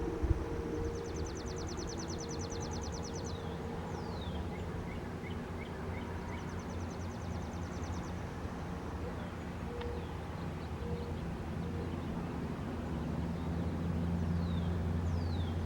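Outdoor ambience after the siren has stopped: birds calling, with a high rapid trill heard three times and a few quick falling whistled notes, over a low steady rumble that grows louder near the end.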